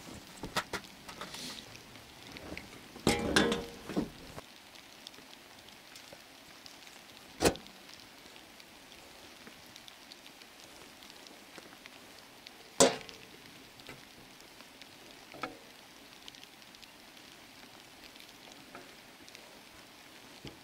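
Faint steady patter of falling snow on the awning, broken by a handful of sharp knocks: a cluster about three seconds in, then single ones, the loudest about thirteen seconds in.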